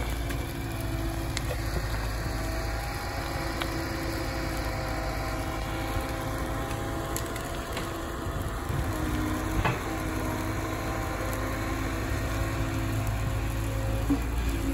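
Liebherr wheeled excavator's diesel engine running steadily under load, with a hydraulic whine whose pitch shifts as the grapple swings and handles brush. A few sharp cracks sound now and then.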